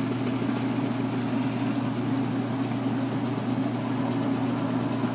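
Washing machine spinning a load of wet wool fleece on the delicates cycle, its motor giving a steady, even hum. The machine is out of level.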